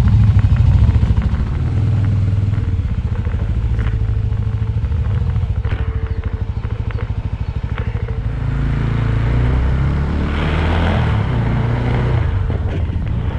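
Suzuki Thunder motorcycle's engine running at low speed, pulsing steadily, with a rushing noise that swells about two-thirds of the way through and fades near the end.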